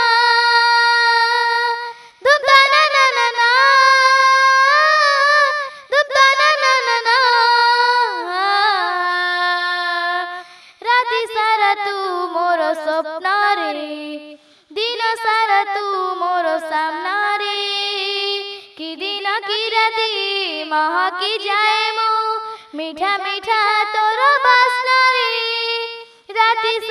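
A young girl singing a song solo and unaccompanied. Her melodic phrases hold and bend in pitch, with short breaks for breath every few seconds.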